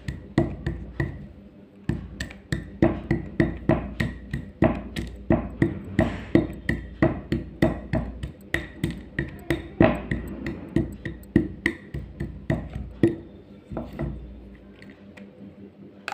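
A hard block being crushed: a run of sharp cracking crunches, about two a second, that thin out about thirteen seconds in.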